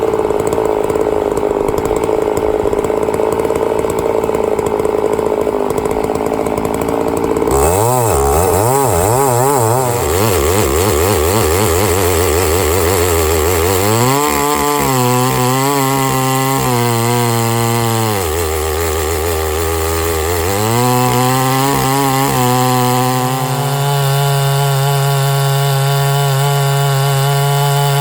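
Stihl MS660 90cc two-stroke chainsaw milling a log with a 64-inch lo pro bar, working hard under load. About a quarter of the way in the engine note starts wavering up and down as the saw bogs and recovers. It dips lower for a couple of seconds past the middle, then settles to a steady high pitch near the end.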